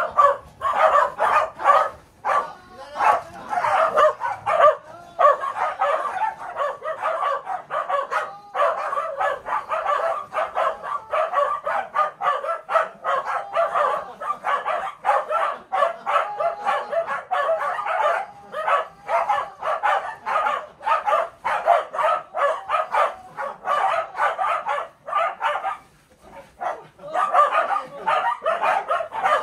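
Welsh corgis barking and yipping, short high calls following one another almost without pause, with a few brief lulls.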